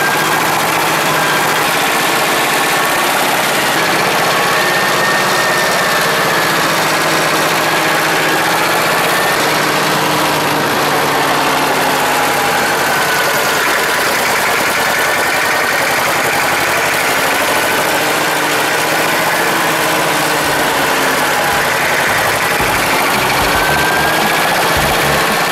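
Air-cooled two-cylinder diesel engine of a Deutz D25 tractor running steadily while driving, heard from the driver's seat; its pitch rises and falls a little now and then.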